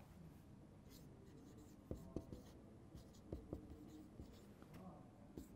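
Marker pen writing on a whiteboard: faint strokes with scattered short taps as letters are drawn.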